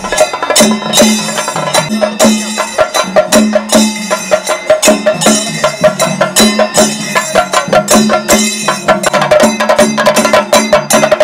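Chenda drums beaten with sticks in a fast, loud, steady rhythm, as in a Kerala chenda melam; the strokes come faster near the end.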